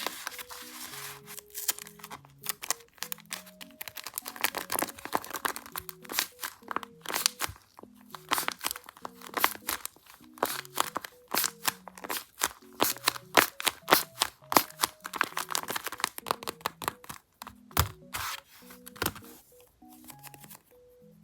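Paper crinkling and crunching in many quick crackles while a paper squishy is handled and stuffed, over a soft, slow background melody.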